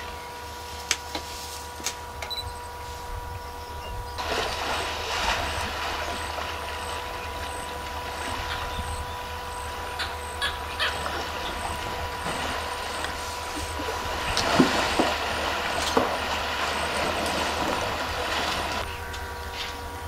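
African elephants wading and bathing in a shallow river, with water splashing and rushing from about four seconds in until shortly before the end. There are a few louder splashes about three-quarters of the way through. Before the water starts, a few light clicks are heard over a steady faint tone that continues underneath.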